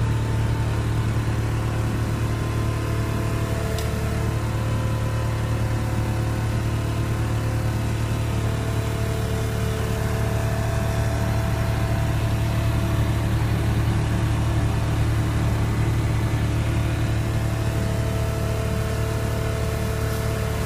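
TurboAir DH1021ES motor running with a steady low hum, the abnormal vibration noise that the owner flags as a motor fault.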